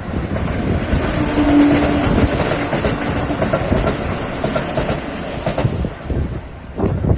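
A passing vehicle's rumble that builds and then fades after about five seconds, with a brief steady tone about a second in.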